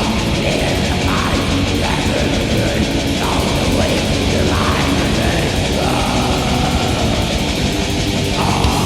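Black metal music: distorted electric guitars and drums playing without a break.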